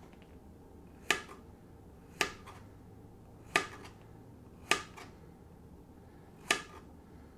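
Serrated knife slicing through a yellow squash and striking a plastic cutting board: five sharp chops, roughly a second or so apart.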